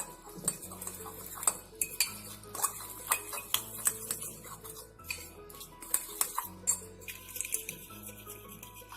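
A metal utensil clinking and scraping against a bowl, irregular strokes, as flour-and-water batter is stirred to a smooth, lump-free, slightly runny consistency. Soft background music runs underneath.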